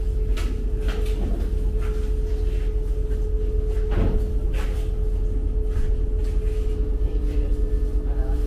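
Ferry engine running with a steady low hum and a held tone, heard from inside the passenger cabin, with scattered clicks and knocks and a louder thump about four seconds in.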